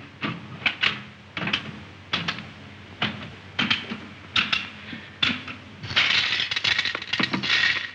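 Mechanical nickel slot machine: spinning reels give a string of sharp clicks and clacks, then from about six seconds in a dense, continuous clatter of nickels pouring out in a jackpot payout.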